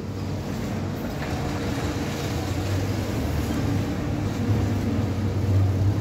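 Steady low rumble with a hum, getting slightly louder in the second half.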